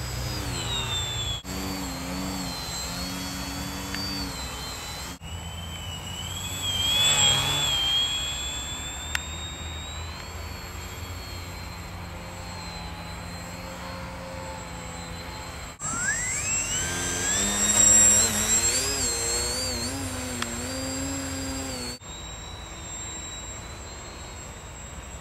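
Small electric motors and propellers of foam RC planes whining in flight. The pitch rises and falls with throttle and as the planes pass closer, with a sharply rising, louder whine about two-thirds of the way through. The sound jumps abruptly several times.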